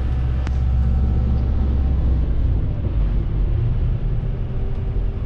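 Low, steady engine and road rumble of a tour vehicle, heard from inside the cabin, with a single sharp click about half a second in.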